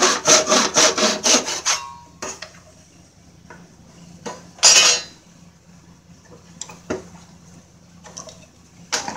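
Handsaw cutting a miter through a fir 1x2 in a miter box: quick back-and-forth strokes, about four a second, that stop about two seconds in as the cut finishes. After that come a few light knocks and one short rasping scrape about five seconds in.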